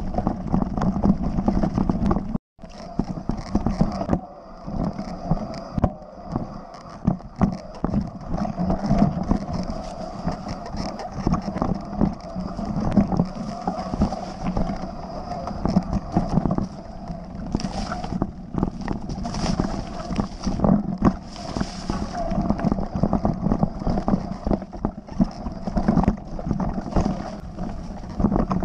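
Mountain bike ridden over a leaf-strewn dirt trail, heard from a camera on the bike or rider: continuous rolling and rattling with frequent knocks over bumps, and wind on the microphone. The sound cuts out for an instant about two and a half seconds in.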